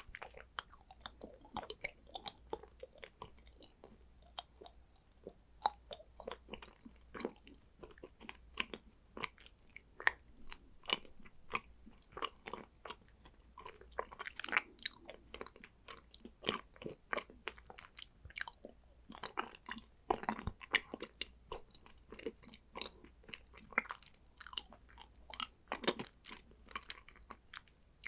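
Close-miked chewing of condensed-milk chocolate: an irregular run of crisp clicks and snaps as the chocolate breaks between the teeth.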